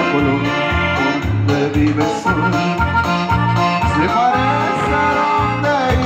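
Live norteño dance music: accordion playing the melody over a steady, pulsing bass beat.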